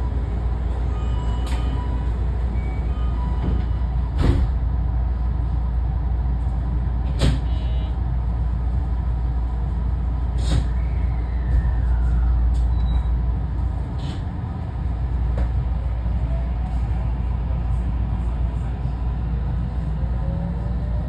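Inside a JR West 207 series motor car at rest: a steady low hum with several sharp clunks. Near the end the Toshiba IGBT VVVF inverter begins a rising whine as the train starts to pull away.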